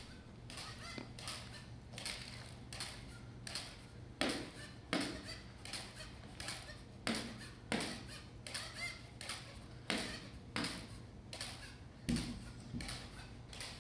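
SALTO, a small one-legged jumping robot, hopping over and over: a sharp tap from each landing, about two a second, some landings louder than others.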